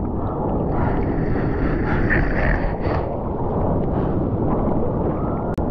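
Seawater sloshing and splashing right against a board-mounted camera at the water's surface, with wind buffeting the microphone.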